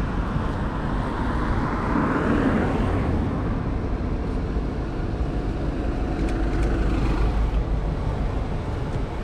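City street traffic noise with a steady low rumble, swelling as a vehicle passes about two seconds in.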